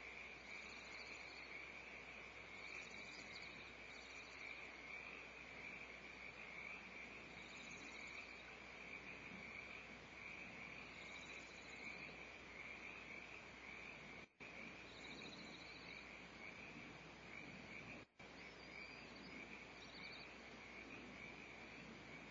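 Near silence: a faint steady hiss with a high whine in it, and short, high, rapidly pulsed trills every few seconds. The sound cuts out briefly twice, about two-thirds of the way in.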